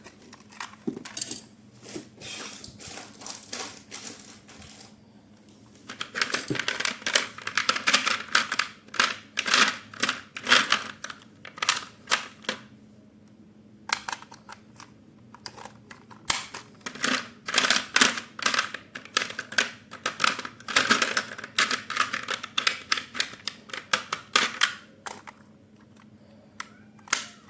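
Rapid clicking and crackling of cardboard and plastic packaging being handled and opened, in two long busy stretches with quieter, scattered clicks around them.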